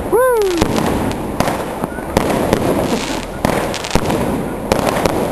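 A multi-shot firework cake firing a volley of sharp bangs, several a second at an uneven pace, over steady street noise.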